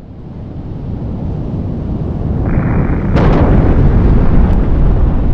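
A deep rumbling roar that swells up from silence and keeps growing louder, with a sudden sharp crack about three seconds in.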